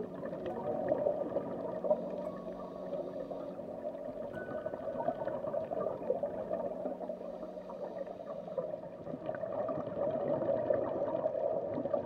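Muffled underwater water noise picked up through an action camera's waterproof housing: a steady churning, gurgling wash.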